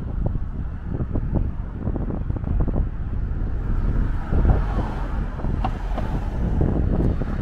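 Wind buffeting the microphone in an uneven low rumble, over city street traffic that swells and fades about halfway through.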